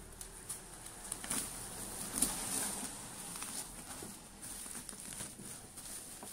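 Black plastic parcel wrapping and packing tape being torn and pulled off by hand: irregular crinkling and rustling with many small crackles.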